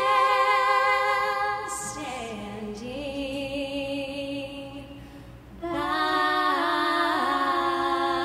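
Women's voices singing a slow song live, with held notes and vibrato. About two seconds in a note slides down into a quieter, lower passage, and at about two-thirds of the way through the voices come back louder and higher.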